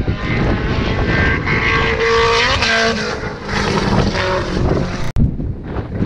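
A hillclimb car's engine passing on the mountain road, its pitch gliding as it goes by, over heavy wind buffeting the microphone. About five seconds in the engine sound cuts off suddenly, leaving only the wind.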